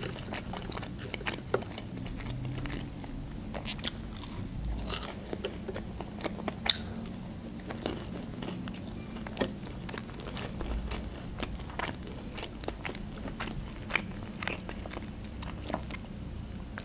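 Close-up chewing and biting of a chicken nugget dipped in sauce, with scattered sharp crunches and clicks.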